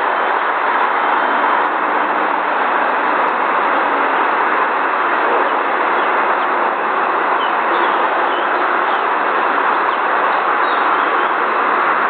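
Steady loud rushing noise that does not change, with a few faint, short high chirps between about seven and eleven seconds in.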